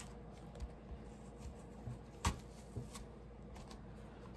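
Metal spoon scraping and digging into an apple's skin and flesh in short, faint strokes, with a sharper click a little past halfway.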